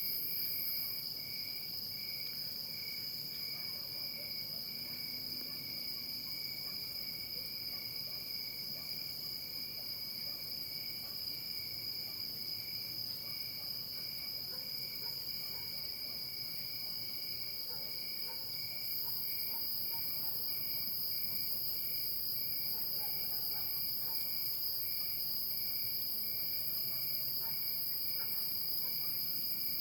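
Night insects such as crickets chirring together in an even chorus: steady high trilling, with a lower chirp pulsing at an even rate beneath it. The highest trill grows louder about two-thirds of the way through.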